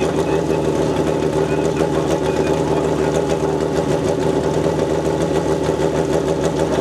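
Drag-racing motorcycle engine idling steadily, holding an even pitch without revving.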